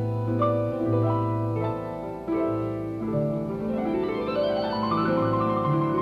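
Piano music with held chords; about halfway through, a quick run of notes climbs upward in pitch.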